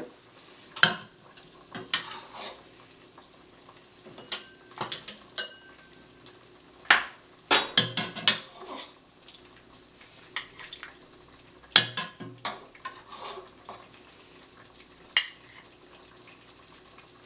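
Ladle clinking and knocking against a pot and a bowl as soup is ladled out, in irregular sharp clinks, some in quick clusters, over a faint steady hum.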